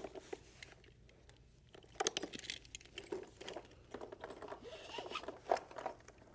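Nylon straps being pulled and laid across a patient on a plastic backboard: scattered rustles and scrapes of the webbing with light clicks and taps, louder about two seconds in.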